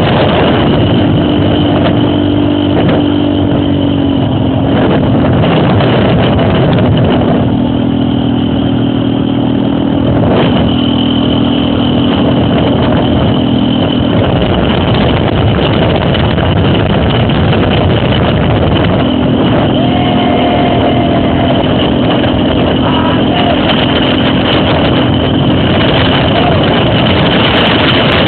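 Trail motorcycle engine running while riding off-road, its note held steady in three stretches and fading between them, over a loud, steady rush of noise.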